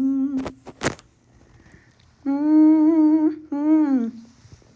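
A person humming a tune with the mouth closed: a held note at the start, then after a short pause two long notes, the second sliding down. Two sharp clicks come under a second in.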